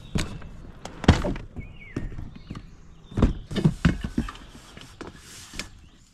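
Hard plastic gear boxes and a steel flask being set down in an inflatable boat: a string of thuds and knocks, the loudest about a second in and several close together about three to four seconds in.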